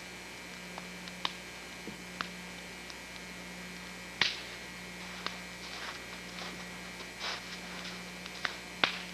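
Campfire crackling: scattered sharp pops and clicks at irregular intervals, the strongest about four seconds in and near the end, over a steady low hum.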